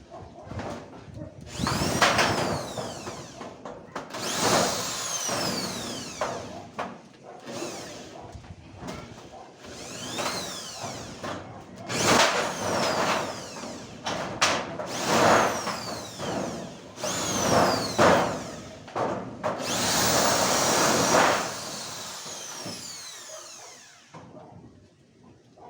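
A power tool run in repeated short bursts, its pitch rising and falling as the motor speeds up and slows down.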